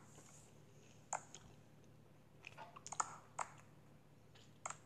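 Hands clapping a simple rhythm of claps and rests: a handful of sharp claps spread out with pauses between them.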